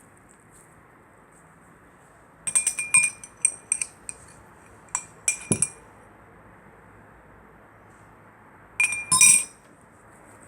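Hard clinking of a utensil or container against a bowl, in three short clusters of clinks: about two and a half seconds in, about five seconds in, and near the end.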